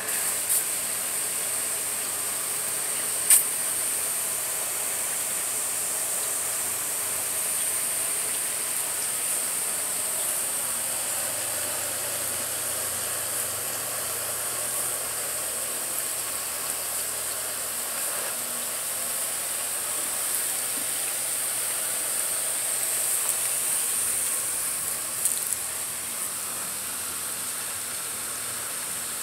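Water spraying steadily from a nozzle on the end of an irrigation line while its ball valve is open, a constant high hiss. A single sharp click about three seconds in.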